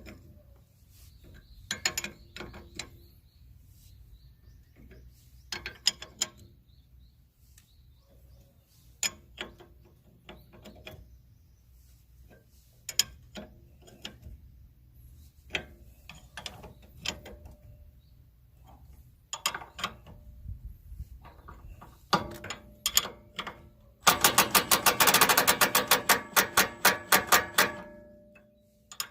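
Hand ratchet wrench clicking in short groups of strokes, then a fast, even run of loud clicks near the end as the ratchet is swung back and forth quickly.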